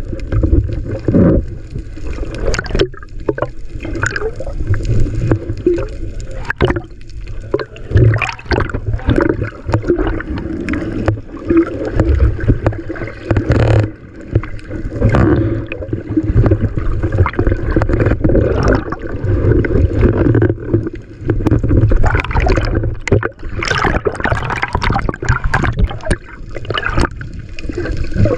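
Choppy seawater sloshing and gurgling around the microphone in rough waves, with irregular splashes over a steady low rumble.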